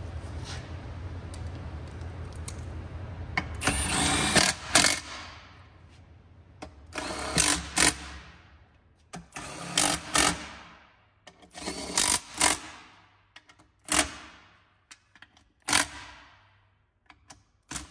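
A cordless power driver runs bolts into an aluminium transmission case. A steady whir for the first few seconds gives way to a series of short bursts of rapid knocking, about one every two seconds.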